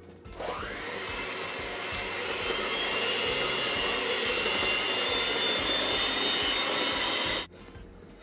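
An electric kitchen appliance motor spins up with a rising whine, runs with a steady whir and high whine for about seven seconds, then cuts off suddenly.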